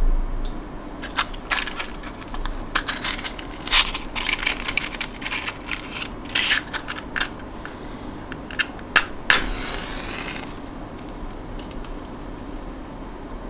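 Clicks and rattles of a matchbox being picked up and handled, then a match struck once about nine seconds in, flaring with a hiss that lasts about a second.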